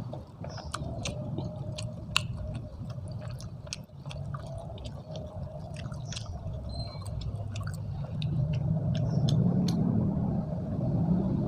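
A person chewing food close to the microphone: a run of wet, irregular mouth clicks and crackles. A low steady rumble sits underneath and grows louder for the last few seconds.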